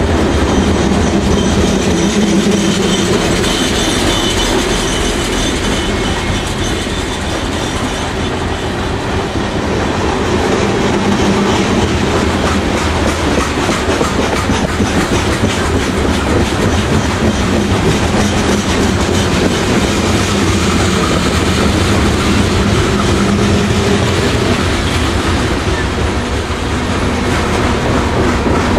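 Canadian Pacific coal train's cars rolling steadily past: steel wheels rumbling on the rails with a constant clickety-clack over the track joints.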